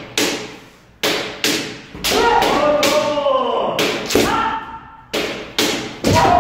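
Kendo sparring: a rapid series of sharp cracks and thuds as bamboo shinai strike each other and the armour, with drawn-out kiai shouts twice.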